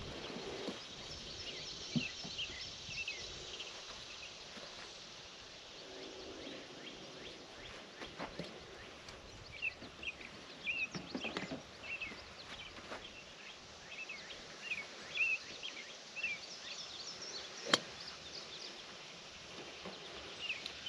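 Quiet outdoor ambience with short high chirps scattered throughout and a few sharp clicks, the loudest a little before the end.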